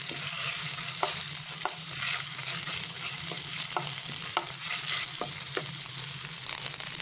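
Ginger, garlic and cumin paste sizzling in hot oil in a pan while a wooden spatula stirs it, with a steady hiss and several short knocks of the spatula against the pan.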